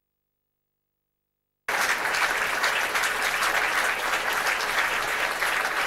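Theatre audience applauding a dancer's bow: dense, even clapping that cuts in abruptly out of total silence about two seconds in.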